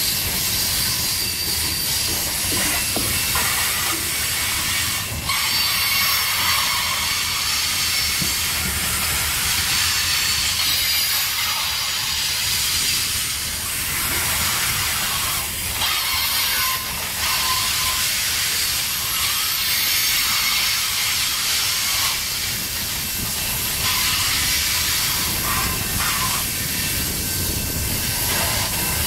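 Covered hopper cars of a long freight train rolling past close by: the steady rumble and hiss of steel wheels on rail, with a few sharp clicks over the rail joints.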